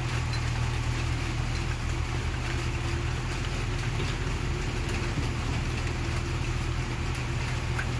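Komatsu PC 81 excavator's diesel engine running steadily, with no rise or fall in level.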